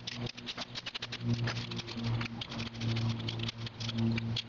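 Irregular metallic clicking and rattling as the 8 mm through-bolts of an alternator's case are backed out with a ratchet and by hand. A steady low hum runs underneath.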